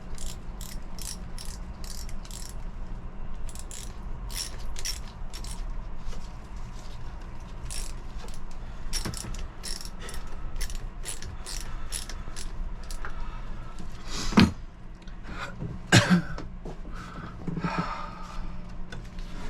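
A hand ratchet clicking in short runs of about three clicks a second, over a low steady hum. There are two louder knocks about two thirds of the way through.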